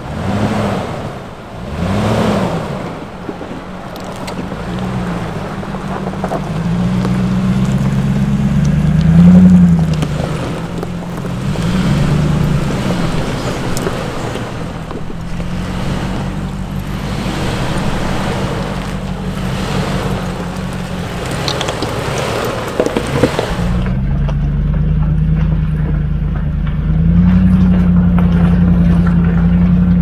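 Off-road SUV engine running at low speed, its revs rising and falling as it crawls over a rocky trail, with the strongest rev about a third of the way in. About two-thirds of the way through, the sound turns duller and steadier.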